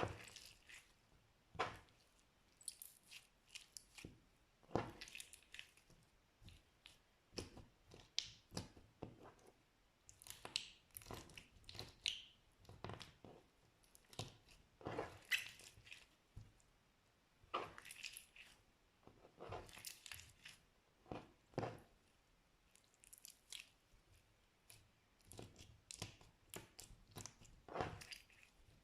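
Slime being squeezed and pressed by hand, with irregular wet squelches and small crackling pops a few times a second.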